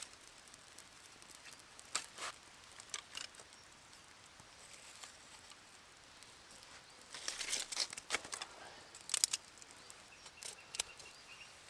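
A small birch-bark and stick fire being fed, giving scattered crackles and rustles, with a cluster of them about seven seconds in and the sharpest snap just after nine seconds.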